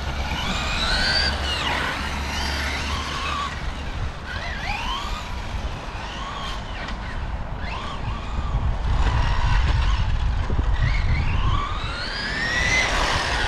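Brushless electric motors of radio-controlled cars whining as they accelerate and back off, several overlapping, each whine rising and falling in pitch, over a low rumble.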